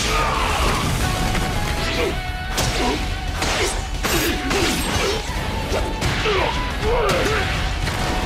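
Anime battle sound effects: a rapid string of crashes and impacts with whooshes, mixed with several strained vocal cries, over a faint held music note.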